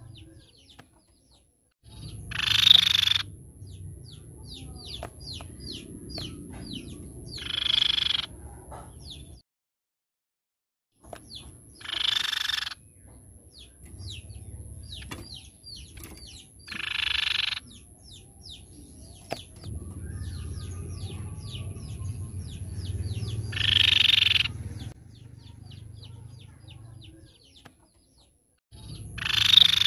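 Crescent-chested babbler (tepus pipi-perak) calling: runs of quick, thin, high down-slurred notes, broken six times by a loud, harsh, rattling call about a second long.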